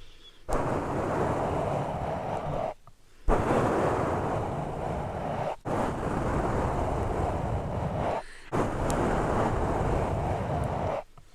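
Something rubbed and brushed directly against a microphone, making a dense scratchy rushing noise in long strokes of two to three seconds, broken by brief pauses.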